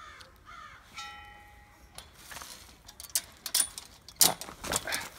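Metal chain and latch of a chain-link gate clinking and rattling as the gate is unfastened, with a ringing clank about a second in and louder clanks toward the end. Crows caw twice at the start.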